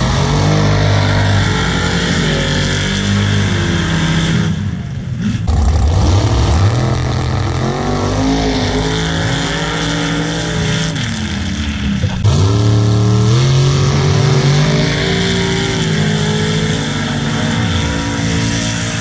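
Engines of off-road vehicles revving hard and accelerating down a dirt drag strip, the pitch climbing and falling with the throttle. The sound breaks off abruptly twice, about four and a half and about twelve seconds in.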